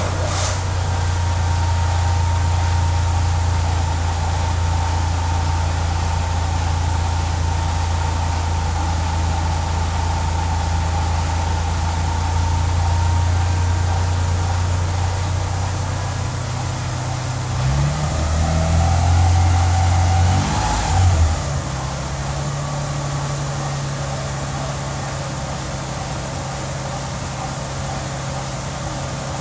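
Twin-turbo 6G72 V6 of a freshly rebuilt 1997 Mitsubishi 3000GT VR4 running at a steady idle on its first start after the rebuild. About 18 seconds in it is blipped a few times, then it settles to a steady, slightly higher idle note.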